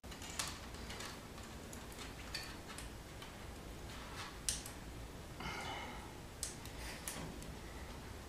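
Faint scattered clicks and ticks of stiff insulated hookup wire being handled and threaded by hand along a plywood wiring panel, with a sharper click about four and a half seconds in.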